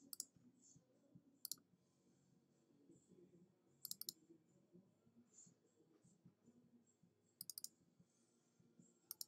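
Faint computer mouse clicks: five short groups of quick double-clicks spread a second or several apart.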